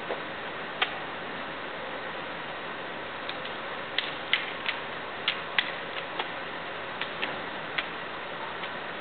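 Sharp clicks and slaps of hands catching and gripping a drill rifle as it is spun and tossed, about a dozen at uneven intervals and bunched about four to six seconds in, over a steady background hiss.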